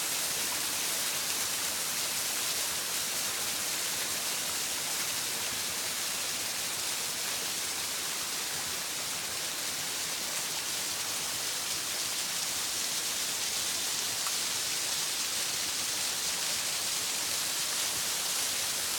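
Waterfall pouring and splashing in a steady, hissing rush, its flow swollen now that the winter ice has melted.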